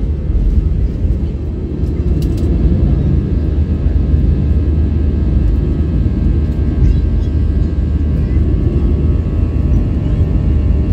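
Airliner cabin noise during takeoff and initial climb: the engines at takeoff power make a loud, steady low rumble, with faint steady higher tones above it.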